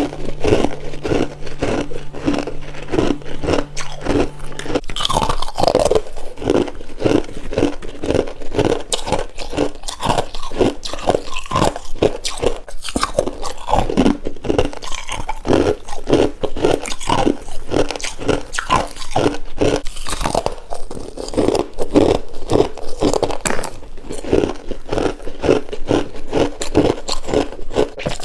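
Close-up crunching and chewing of soft freezer frost, at a steady pace of about three crunches a second.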